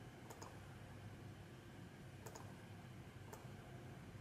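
Faint computer mouse clicks against near-silent room tone: a quick double click shortly after the start, another double click about two seconds in, and a single click a second later.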